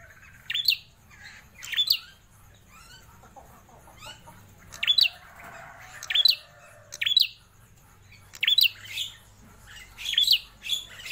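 Caged prenjak klawu songbird calling loudly in short, sharp, high phrases about a second apart, coming faster near the end.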